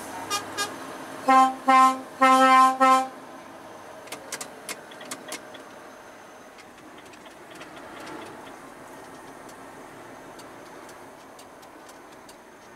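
Truck horn sounded in two short toots, then three longer blasts, ending about three seconds in. After that the steady running noise of the truck cab on the move, with a few faint clicks.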